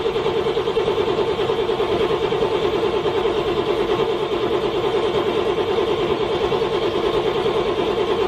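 Car engine turning over on its starter in freezing cold, a steady rapid churning rhythm of several pulses a second that never catches: a cold engine struggling to start.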